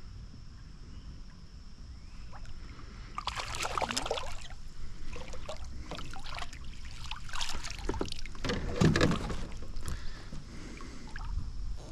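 Water splashing and sloshing against a fishing kayak in irregular spurts, starting about three seconds in and loudest twice, near the start of each spurt.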